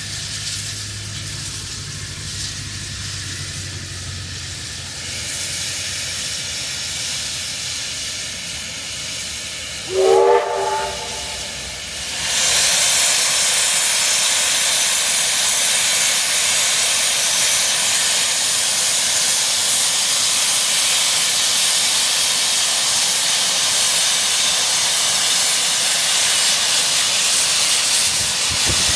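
AD60-class Beyer-Garratt steam locomotive 6029 hissing steam. About a third of the way in comes one short blast of its steam whistle, rising in pitch. Soon after, a loud, steady rush of steam takes over as its cylinder drain cocks blow steam out at rail level.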